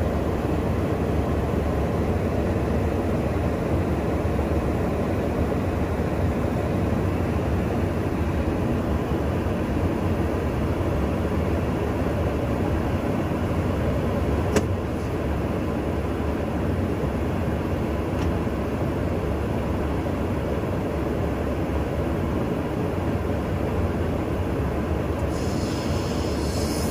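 Steady in-flight drone of a KC-135 tanker's engines and airflow heard from inside the aircraft, with a single sharp click about halfway through.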